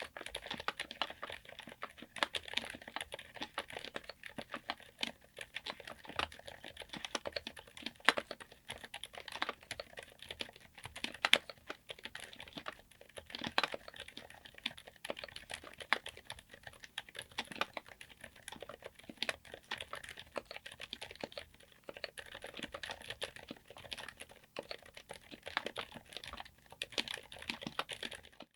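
Fast, continuous typing on a mechanical keyboard with Jerrzi Honey Bean silent linear switches, in an FR4 plate on a DZ60 board in an aluminium Tofu60 case: a dense run of soft, dampened key clicks, a few strokes standing out louder.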